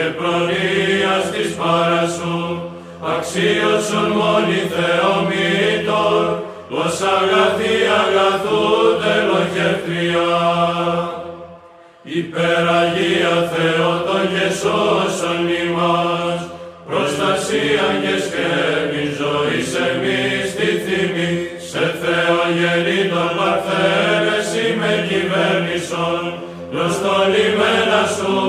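Byzantine chant sung by a choir of men's voices: a slow, ornamented melody over a held low drone note (the ison). It comes in phrases with short breaths between them; the longest pause falls about twelve seconds in.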